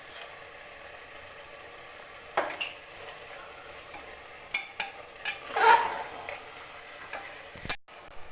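Grated carrots and khoya frying in ghee with a steady sizzle, while a spoon stirs and scrapes the mixture, knocking against the pan several times. The loudest knock comes about two-thirds of the way through, and the sound drops out briefly near the end.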